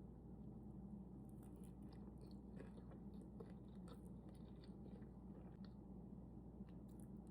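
Quiet chewing of a mouthful of sushi, with faint, scattered wet mouth clicks.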